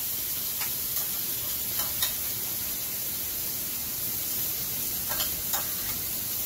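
Steak, garlic butter and onions sizzling steadily in a hot cast iron skillet, with a few short clicks of metal tongs as onion rings go into the pan.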